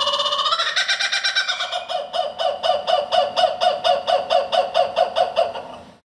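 Laughing kookaburra calling: a fast rolling chuckle that steps up in pitch about half a second in, then breaks into a run of evenly repeated notes, about four a second, that fade away near the end.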